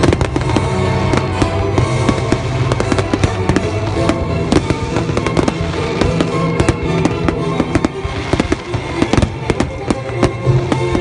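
Aerial fireworks bursting and crackling in rapid, irregular succession in a finale barrage, over music with sustained notes.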